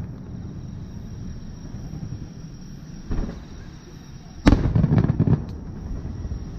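Display fireworks bursting: a softer boom about three seconds in, then a sharp, loud bang followed by a rapid run of further bangs lasting about a second.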